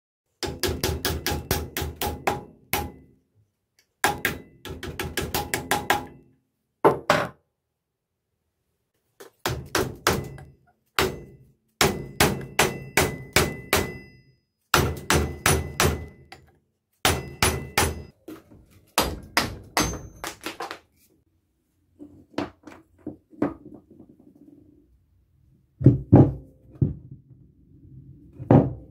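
Quick runs of hammer blows on the steel head of a splitting maul, about five strikes a second with a metallic ring, knocking the old handle out of the eye. Near the end come a few heavier thuds.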